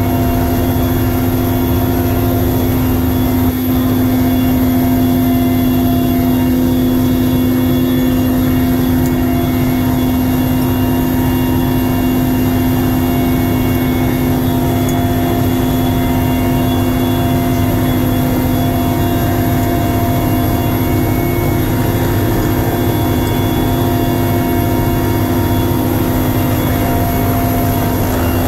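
Mi-8MTV-1 helicopter's twin turboshaft engines and rotor running, heard from inside the cabin: a loud, steady drone with a low hum and a high turbine whine.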